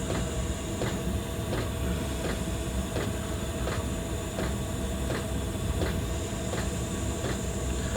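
Butane gas soldering iron burning at full gas, heating its tip: a steady gas hiss. Faint regular ticks come about every three-quarters of a second.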